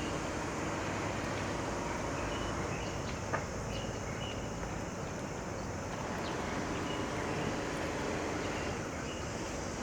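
Steady outdoor city-waterfront ambience: a continuous low rumble of distant motors, with faint short high chirps now and then and a single sharp click about three seconds in.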